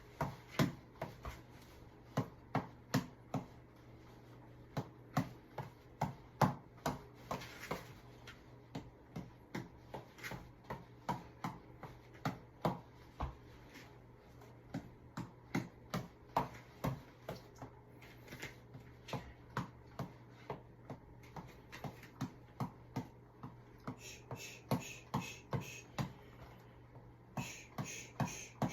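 Tap ball being struck over and over: sharp taps about two a second in an uneven rhythm, over a steady low hum.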